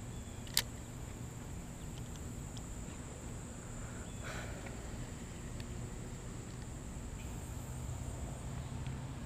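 Steady high-pitched insect drone, as of crickets, over quiet outdoor ambience, with one sharp click about half a second in.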